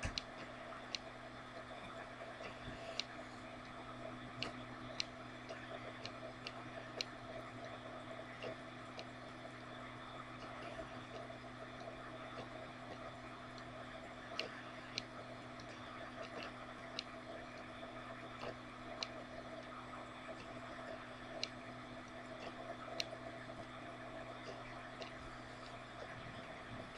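Quiet room tone: a steady low hum with faint, sharp ticks at irregular intervals, roughly one every second or two.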